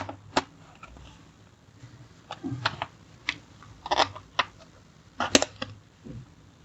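Sharp, irregular plastic clicks and snaps as a plastic card is pried along the seam of a laptop's plastic bottom panel, working at the panel's clips, about ten in all, some in quick clusters and the loudest about five seconds in.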